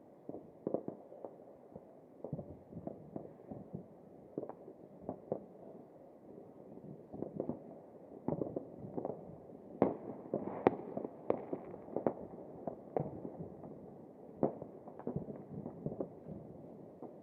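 Fireworks and firecrackers going off: many irregular bangs and pops, some overlapping, becoming denser and louder about ten seconds in.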